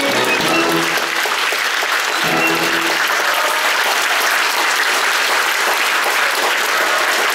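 Theatre audience applauding, with the orchestra's last notes ending about three seconds in.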